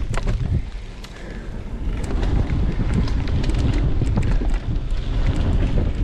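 Mountain bike being ridden over a rough dirt trail: wind buffets the microphone over a low tyre rumble, with many sharp clicks and rattles from the bike.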